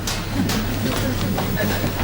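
Background music with a steady low hum, over which come several short knocks and clicks.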